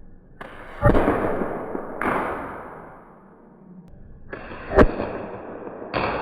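Homemade spark-ignited potato cannon firing: four sharp bangs, each trailing off, with the loudest crack near the end.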